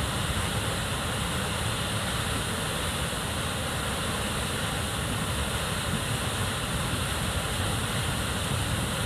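Tahquamenon Falls, a broad waterfall in heavy spring flow, pouring over its ledge into the churning pool below: a steady, unbroken rushing noise.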